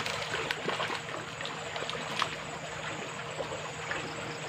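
Water running and trickling steadily, with a few small sharp ticks, the sharpest about two seconds in.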